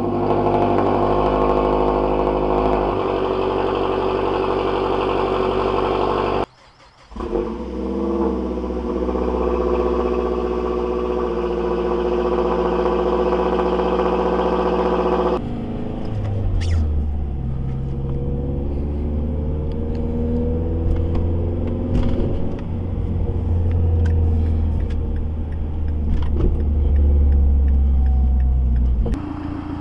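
Mazdaspeed3 turbocharged 2.3-litre four-cylinder with a catted downpipe and non-resonated Magnaflow cat-back exhaust, idling steadily in two clips. From about 16 seconds in it is heard from inside the cabin as a deep low drone that rises and falls gently in pitch.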